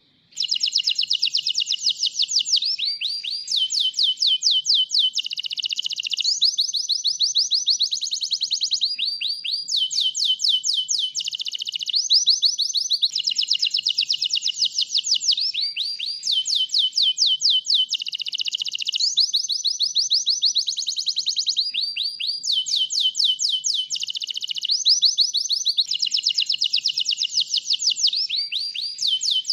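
White domestic canary in full song: a continuous string of fast, high trills, each a run of rapidly repeated notes lasting one to two seconds and changing straight into the next.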